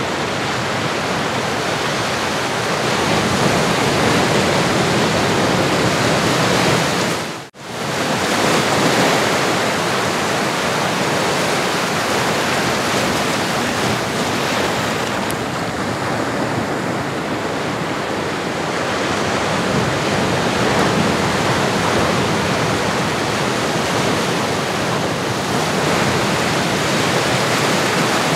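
Recorded ocean surf: a steady wash of breaking waves, with a brief fade down to near silence and back up about seven and a half seconds in.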